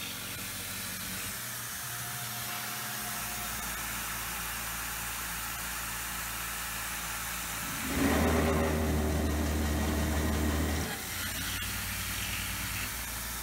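Tormach PCNC 770 CNC mill drilling steel with a 5/16-inch carbide twist drill at 2700 RPM. The spindle runs steadily with a hiss. About eight seconds in, the drill enters the next hole and the sound turns louder, with a low rumble for about three seconds. The machinist gets this rumble whenever the drill enters and cannot explain it.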